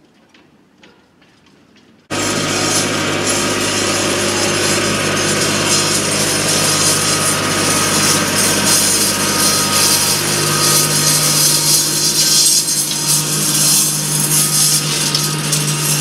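Kubota L3901 tractor's three-cylinder diesel engine running close by while pulling a disc harrow, with a steady rasping from the harrow working the ground. The sound starts abruptly about two seconds in, after near quiet.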